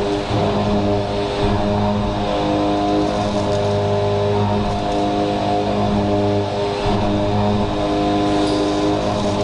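CNC milling spindle driving a four-flute end mill through 4140 steel at high speed, pocketing: a steady pitched machining hum of several held tones over cutting noise, breaking off briefly a few times as the cut changes.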